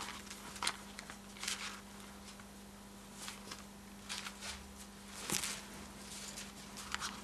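Bible pages being leafed through by hand: faint, scattered paper rustles and flicks as the pages turn, over a steady low hum.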